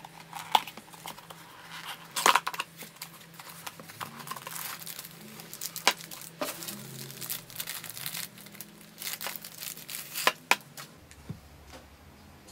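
Crinkly clear plastic wrapping crackling and tearing as it is peeled off a clear acrylic note pad holder, with a few sharp handling knocks. It dies away about two seconds before the end.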